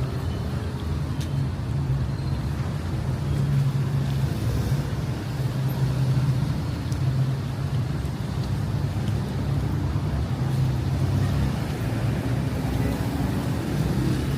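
Road traffic: a vehicle engine running steadily, with a low hum under a constant wash of road noise.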